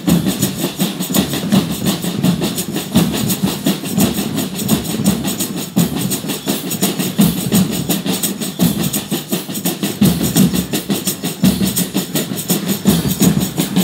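Folia de reis percussion playing a steady rhythm: drum beats under a continuous jingling clatter of tambourines and shakers.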